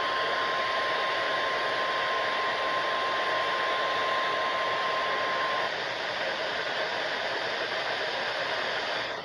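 NOAA Weather Radio 1050 Hz warning alarm tone: one steady, unwavering beep heard through heavy receiver static. The tone cuts off about five and a half seconds in, leaving only the radio hiss.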